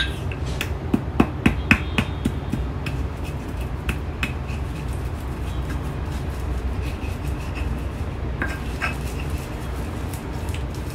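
Stone pestle (ulekan) knocking and grinding in a stone mortar (cobek), crushing chilies and palm sugar into rujak sauce: a run of sharp stone-on-stone clacks, loudest in the first couple of seconds, over a steady low hum.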